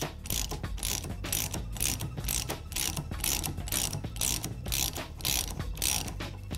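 Socket ratchet clicking in quick, short back-and-forth strokes, about three a second, as it unthreads a motorcycle fork cap from the fork tube.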